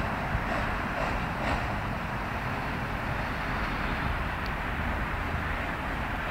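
Steady rumble of a motor vehicle's engine running outdoors, with even road and air noise and no siren.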